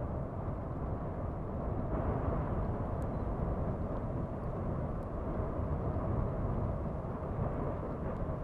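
A steady, low rumbling noise at an even level, with no distinct events.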